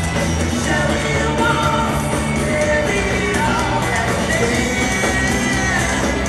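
Rock band playing live: bass, drums and electric guitar under a sung vocal line, heard from the audience in an arena.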